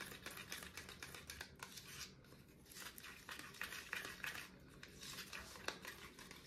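Small metal spoon stirring thick paint in a plastic cup: faint, irregular scraping and clicking against the cup's sides.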